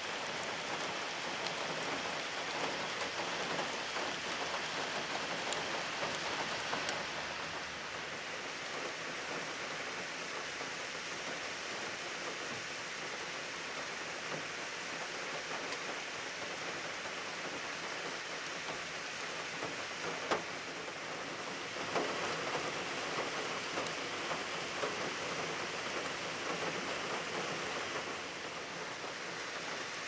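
Heavy rain pouring steadily, blended with the splash of thin runoff waterfalls down a rock face. Two short sharp ticks stand out about two-thirds of the way through.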